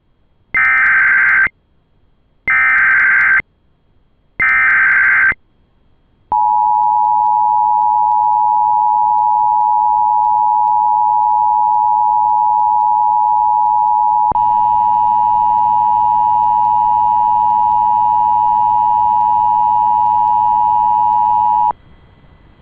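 Emergency Alert System header: three one-second bursts of screechy digital SAME data, followed by the long, steady two-tone EAS attention signal. About 14 seconds in, the tone gains an added low buzz and extra overtones, and it cuts off sharply near the end.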